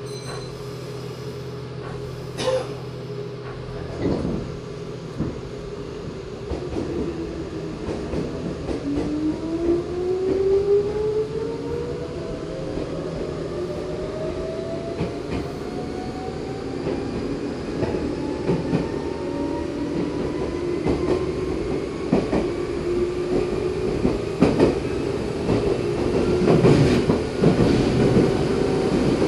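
Meitetsu 6000 series (first batch) electric train accelerating. Its resistance-controlled traction motors whine in several tones that climb steadily in pitch as speed builds, from about a quarter of the way in, over the rumble and clack of the wheels on the rails. A steady low hum and a few sharp clicks come first.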